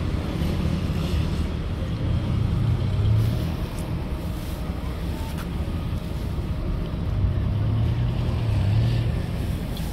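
Low rumble of road traffic, swelling twice as vehicles pass.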